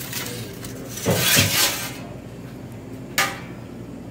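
A metal pizza peel scraping across the stone floor of a wood-fired oven as a pizza is slid off it, loudest about one to two seconds in. A short metallic clank follows a little after three seconds as the peel is pulled out.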